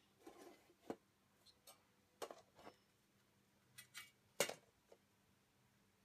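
Hard drive being slid into a sheet-metal drive cage: a scattered handful of quiet clicks and light metal taps, the loudest about four and a half seconds in.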